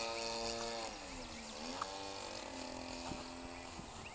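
A giant-scale RC airplane's converted 25cc Cub Cadet (Stihl) trimmer engine running in flight, heard from a distance. About a second in its pitch drops and it gets quieter; the pitch then climbs back and holds steady.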